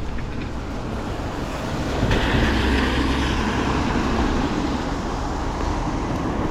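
Road traffic noise mixed with wind on the microphone, growing louder about two seconds in.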